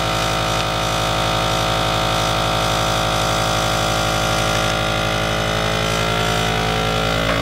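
Countertop vacuum sealer's pump motor running steadily, drawing the air out of a freezer bag before the seal is made. Its pitch climbs slightly near the end.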